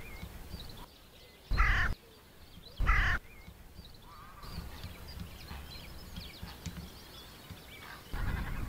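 Carrion crow cawing twice, two short calls about a second and a quarter apart, with faint small-bird chirping behind.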